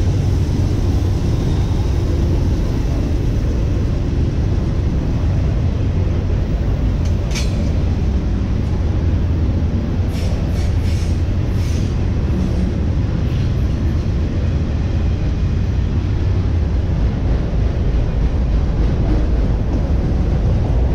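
Autorack freight cars rolling past on steel wheels: a steady low rumble of wheels on rail, with a brief high squeal about seven seconds in and a few sharp clicks a little later.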